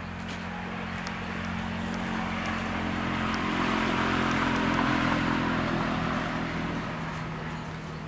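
A motor vehicle drives past. Its engine and tyre noise swells to a peak about halfway through, then fades away.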